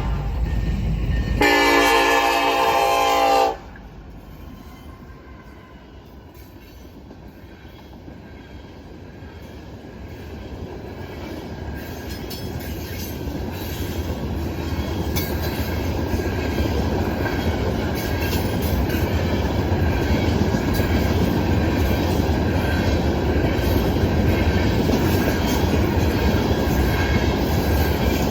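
Diesel locomotive air horn of a Norfolk Southern freight train sounding a loud blast that stops about three and a half seconds in, followed by the rumble and wheel-on-rail noise of the loaded grain train rising steadily as it comes through the crossing.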